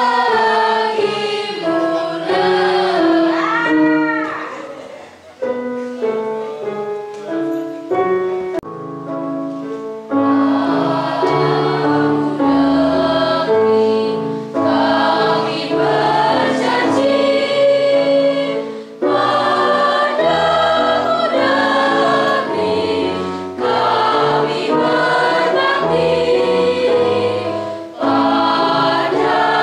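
Mixed choir of high-school students singing together. The singing grows fuller about ten seconds in, with short breaks between phrases.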